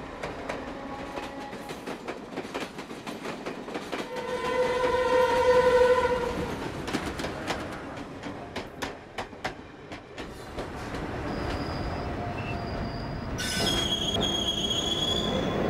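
Train running on rails with steady clattering of wheels over the track. A horn sounds about four seconds in and lasts about two seconds, the loudest moment. High-pitched wheel squeal begins near the end.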